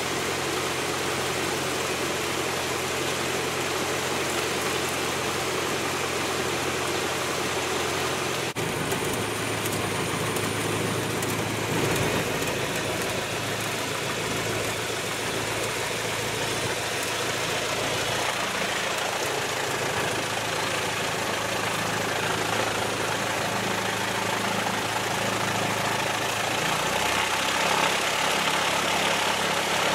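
Piston engine of a 1960s four-seat light airplane heard from inside the cockpit, running steadily. About eight and a half seconds in the engine note changes abruptly to a fuller, slightly louder drone.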